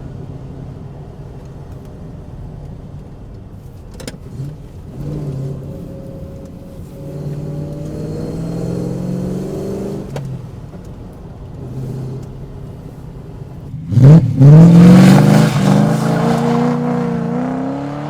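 Rover SD1 Vitesse V8 engine running while the car is driven, rising gently in pitch, then revving hard and loud about fourteen seconds in and climbing steadily. The engine is misfiring and down on power. Two sharp clicks in the first ten seconds fit the clutch cylinder that the owner says is clicking louder and about to go.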